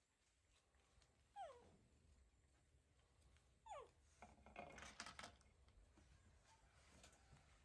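Baby macaque whimpering: two short squeaks that fall quickly in pitch, a couple of seconds apart, then a rougher, noisier sound about a second after the second squeak.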